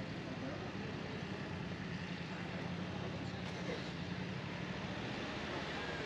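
Road traffic alongside a pedestrian walkway: a steady hum of car engines and tyres, fading slightly near the end.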